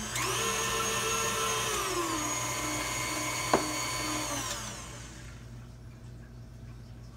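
KitchenAid tilt-head stand mixer's motor running with its wire whip in batter: it speeds up at the start, steps down to a lower speed about two seconds in, then is switched off and winds down to a stop around five seconds in. A single sharp click midway.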